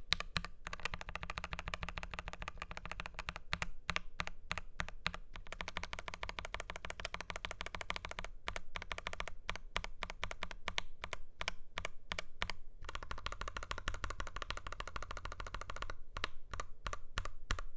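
Typing on a Dark Project KD83A mechanical keyboard with G3ms Sapphire linear switches, a stainless steel plate and PBT double-shot keycaps: fast runs of keystroke clacks with brief pauses between them, slowing to separate key presses near the end.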